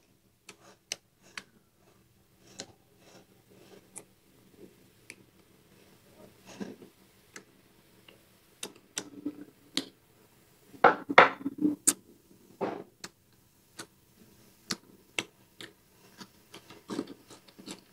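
Wooden chopsticks clicking and tapping against a glass rice bowl, with small eating sounds between the taps. A louder cluster of sound comes about eleven seconds in.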